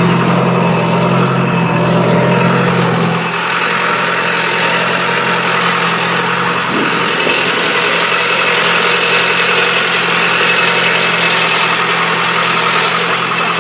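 Engine of a farm vehicle running steadily while carrying riders across a pasture; its low hum drops away about three seconds in and the engine then runs on evenly.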